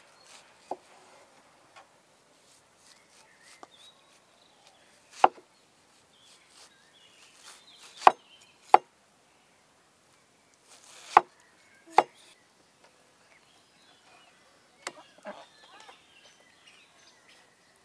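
Chopping: about half a dozen sharp knocks at irregular intervals, the loudest coming in two close pairs near the middle.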